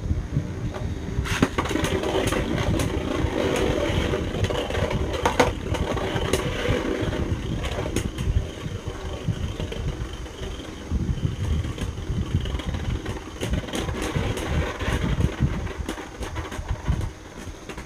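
Two Beyblade Burst spinning tops, Wizard Fafnir and Unperfect Phoenix, whirring in a plastic stadium, with frequent sharp clicks as they strike each other and the stadium wall. The whir grows weaker near the end as the tops lose spin, ahead of a spin finish.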